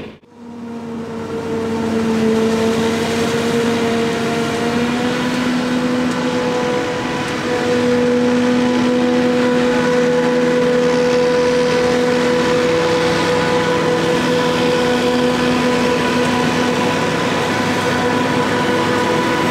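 Claas Jaguar 870 forage harvester running under load: a steady, loud machinery hum with a held tone that drifts slightly in pitch. It grows a little louder about eight seconds in.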